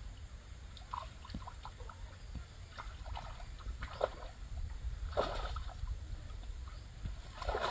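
Water splashing and sloshing as a cast net is hauled in through shallow muddy water, in several separate splashes with the loudest near the end, over a steady low rumble.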